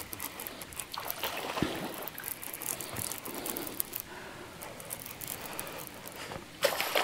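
Faint trickling, lapping water with scattered small clicks and knocks, a little louder near the end.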